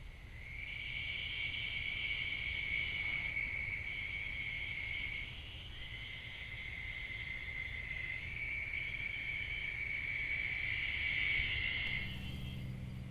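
Night insects trilling steadily at a high pitch, like crickets, in long runs of a few seconds with brief breaks. A low hum comes in near the end.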